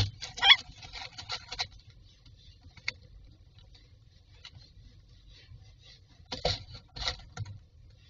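Common myna moving about inside a wooden nest box: claws scrabbling and dry grass nest lining rustling in bursts as it settles onto its eggs, with a brief call about half a second in.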